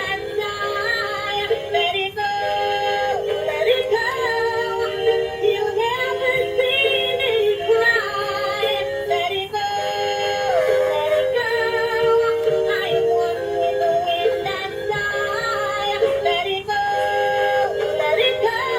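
A tinny electronic song with a synthesized singing voice, with no bass, of the kind played through the small built-in speaker of a battery-powered dancing doll toy.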